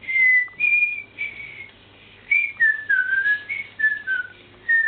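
A child whistling a tune with the lips: a string of clear notes that step up and down, pausing briefly about two seconds in, then going on in lower notes.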